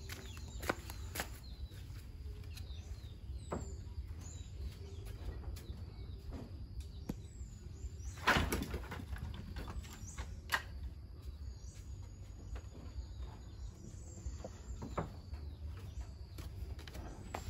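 Faint birds chirping now and then over a steady low rumble, with scattered clicks and knocks; the loudest knock comes about eight seconds in.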